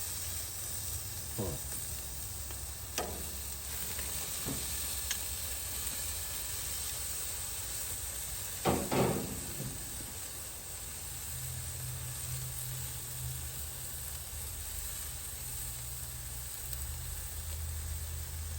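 Steaks sizzling on a hot grill, with butter just added on top: a steady hiss. A few light knocks sound through it, the loudest pair about nine seconds in.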